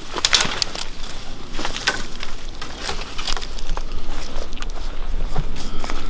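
Scattered crackles and snaps of dry twigs and pine-needle litter on a forest floor, from footsteps and wooden branches being handled.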